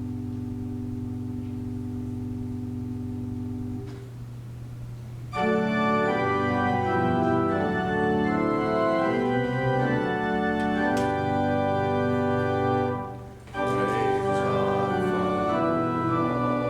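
Church organ playing. A soft held chord fades out about four seconds in. Then full, louder chords come in and move from one to the next, breaking off briefly about two-thirds of the way through before going on.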